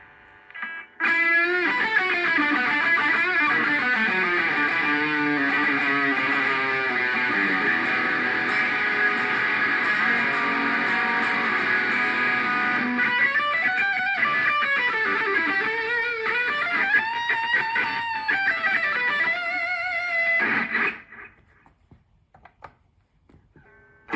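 Electric guitar played through a preset effects patch on a Zoom G1X Four multi-effects pedal. A sustained phrase starts about a second in, with notes swooping up and down in pitch. It dies away a few seconds before the end, and the next sound starts right at the end.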